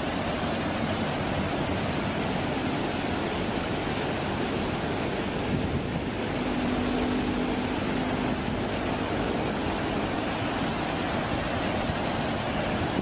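Water rushing steadily down a stepped concrete spillway, a man-made waterfall, in an even splashing rush of white water.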